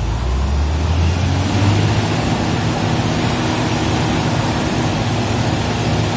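Diesel engine of an XCMG pipelayer revving up, its pitch rising over the first two seconds, then running steadily at the higher speed.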